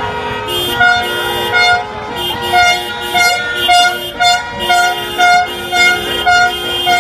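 Several car horns honking over and over, short blasts about one every half to three-quarters of a second mixed with longer, steadier horn tones at other pitches.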